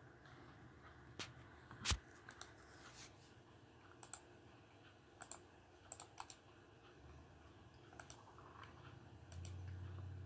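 Faint scattered clicks and taps, with one louder knock about two seconds in, over a low hum that gets louder near the end.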